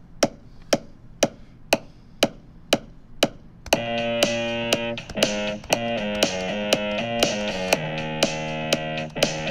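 Metronome clicking at 120 beats per minute, two clicks a second, through a count-in. About four seconds in, a distorted fuzz bass synth comes in, playing a bass line of held notes that change pitch every half second or so, with the clicks going on under it.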